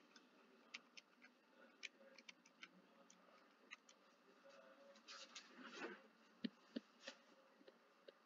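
Near silence: room tone with faint, scattered taps and clicks, a few of them close together about five to six seconds in.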